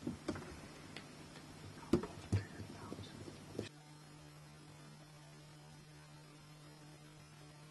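Steady low electrical hum on the recording. A handful of sharp clicks and knocks in the first few seconds, then only the hum.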